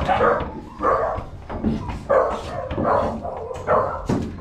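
Kennelled teenage puppies barking repeatedly, a bark roughly every second or less.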